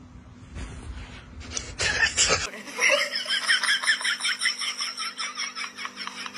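Low rumbling noise with a few short, sharp bursts, then, from about two and a half seconds in, a person laughing in a rapid, high-pitched string of short pulses.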